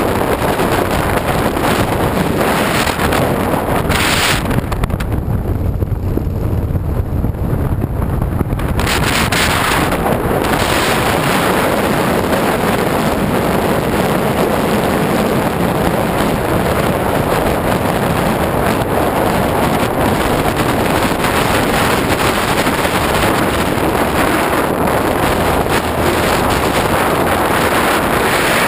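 Wind rushing over the microphone of a camera riding on a cruiser motorcycle at road speed, over the low running of the bike's engine. For a few seconds, starting about four seconds in, the high hiss of the wind drops away and the lower drone comes through more clearly.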